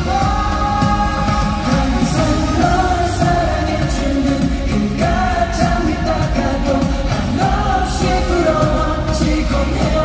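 A male pop singer sings live into a handheld microphone, held notes bending through a melody over pop accompaniment, all coming through an arena's sound system.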